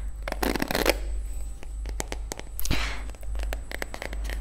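Bristles of a paddle hairbrush scratched and brushed close to the microphone, with crackly scratching strokes and scattered sharp clicks, loudest just after the start and again about three seconds in.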